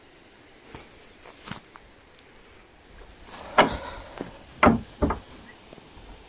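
Wooden door of a small outhouse being handled and pulled open: a few faint taps and steps, then three sharp wooden knocks and clunks from the door in the second half.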